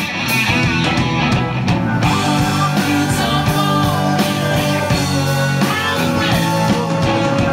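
Live rock band playing electric guitars and drums, with a man singing through the PA from about two seconds in.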